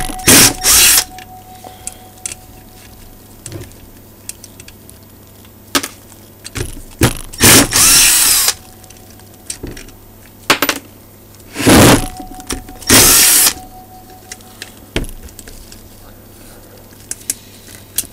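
Power drill run in short bursts, about six in three pairs, backing out the bolts that hold the top cover of an Emotator 1200 antenna rotator. Small clicks and knocks of metal parts being handled come between the bursts.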